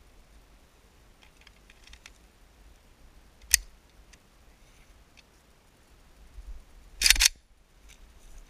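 Zastava M76 rifle being loaded. Faint handling clicks come first, then a single sharp click as the magazine locks into the well about three and a half seconds in. About seven seconds in, a louder quick clatter as the charging handle is pulled back and let go, the bolt running forward to chamber a round.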